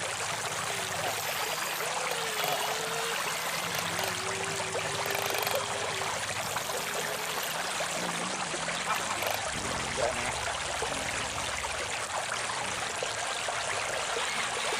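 River water flowing in a steady rush.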